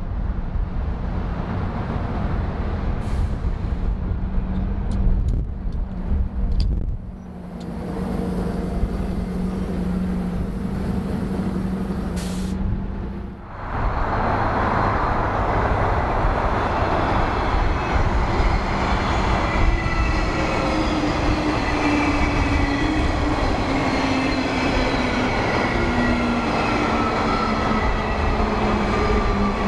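A Volvo city bus drives past with a steady engine hum. About halfway through, this gives way to a Transperth electric train approaching and passing: wheels running on the rails under a whine of several tones that slowly fall in pitch.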